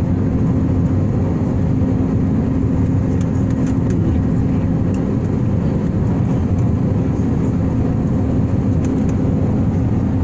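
Steady jet airliner cabin noise: engine and airflow rumble with a constant low hum, unchanging throughout.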